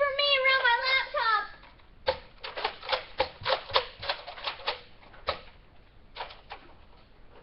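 A high-pitched drawn-out yell, then a quick run of sharp clicks, about four or five a second for some three seconds, with a few scattered clicks near the end.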